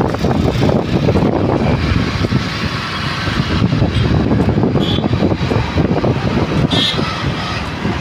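Road and traffic noise heard from a moving vehicle, with wind buffeting the microphone, and two brief high beeps near the middle.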